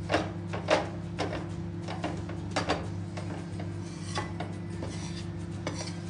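A metal spatula scraping and knocking against an aluminium kadhai as wheat flour roasting in ghee is stirred, in short strokes every half second to second, loudest near the start. A steady low hum runs underneath.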